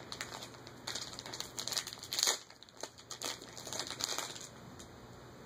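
Crinkling and rustling of trading-card packaging being handled and opened, in short irregular crackles, the loudest about two seconds in.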